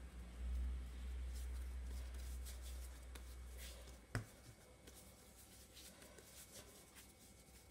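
Hands rolling a soft ball of bread dough between the palms on a floured countertop: faint soft rubbing and light patting. A low rumble runs through the first half, and there is one sharp tap about four seconds in.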